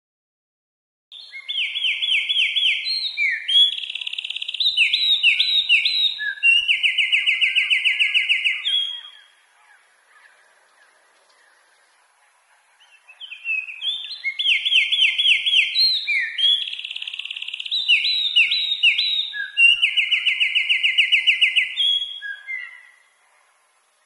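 Eurasian wren singing two long songs, each about eight seconds, of fast, loud trills and rattles, with a short pause between them.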